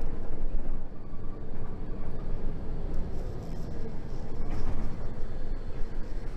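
Cabin sound of a moving city bus: a steady low rumble from the engine and the road, with a couple of light clicks in the second half.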